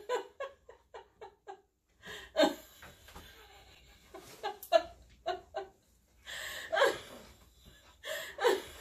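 A woman laughing in short, repeated bursts, with a few louder laughs spaced a second or two apart.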